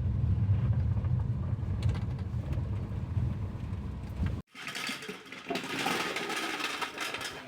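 Maruti Alto running, a steady low rumble. About four seconds in, it cuts off suddenly and gives way to a busier mix of light clatter and clinks.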